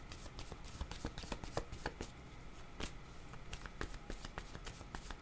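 A worn deck of cardboard oracle cards being shuffled by hand, giving a quiet, irregular patter of soft card-on-card ticks and slaps.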